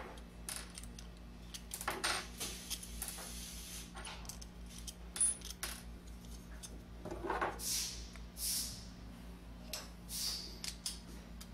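Hand tools (pliers, flathead screwdriver and nut driver) clinking and scraping against the small metal parts of a Columbia automatic taper's head as the clutch cam and push rod are taken off, in irregular light metal clicks with a few short scrapes.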